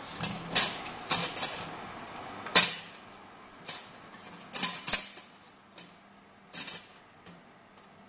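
Stainless-steel canister and lid being handled and fitted into place: about ten sharp metal clicks and taps, the loudest about two and a half seconds in, thinning out toward the end.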